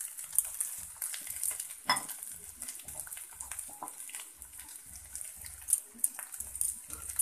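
Mashed potato frying in a little oil in a pan with a steady light sizzle, stirred with a wooden spatula that scrapes and knocks against the pan now and then.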